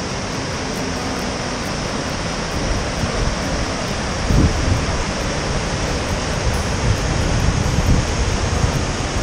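Rushing mountain creek: whitewater pouring over boulders in a steady rush of water, with low thumps of wind on the microphone now and then, the strongest about four seconds in.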